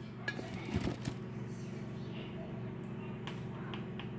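A few light clicks of a utensil against a pot of spaghetti and meat sauce in the first second, with one more about three seconds in, over a steady low hum.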